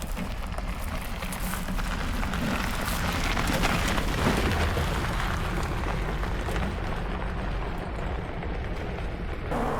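Off-road vehicle driving on a dirt trail, a steady mix of engine and tyre rumble, with a sudden change near the end.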